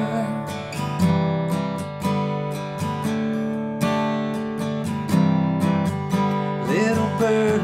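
Acoustic guitar strummed in a steady upbeat rhythm. A held, wavering sung note dies away just after the start, and the voice comes back near the end.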